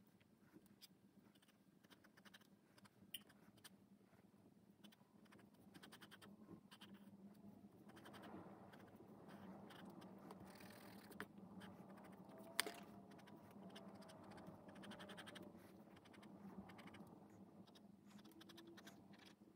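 Faint scratching of a pencil and fine pen drawing on sketchbook paper, with one sharp tick a little past halfway.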